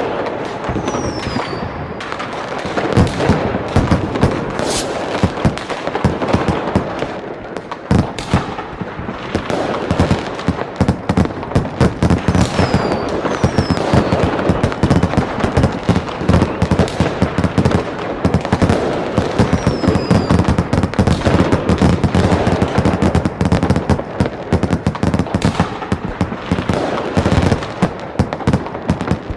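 Fireworks display: a dense, continuous barrage of bangs and crackling shell bursts, with a few short falling whistles from rising shells.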